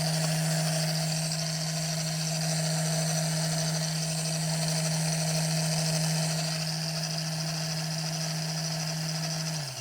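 Electric paper shredder motor running steadily with a constant hum, cutting out and winding down just before the end.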